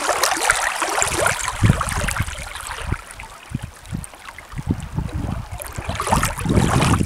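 Small waves lapping and splashing irregularly against a rock at the water's edge, with a light hiss of moving water; it eases off for a while in the middle, then picks up again.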